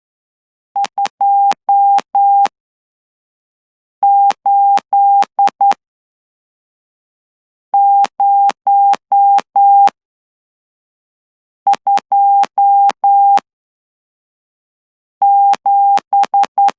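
Morse code sidetone keyed by hand on a straight key at 12 words per minute: a single steady mid-pitched beep broken into dots and dashes. It comes in five separate characters about four seconds apart, each of five dots and dashes as Morse numerals are, and each tone starts and stops with a faint click.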